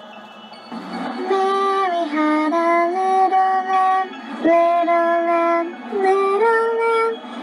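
A high, childlike voice singing a slow melody in long held notes, starting about a second in, over quiet music.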